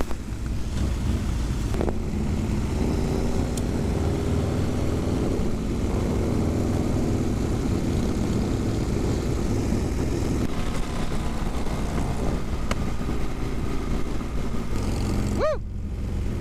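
Harley-Davidson Sportster V-twin (an 883 converted to 1200) running steadily under way, mixed with wind and road noise on the helmet camera. A short pitched blip sounds near the end. The owner found this bike had a blown spark plug.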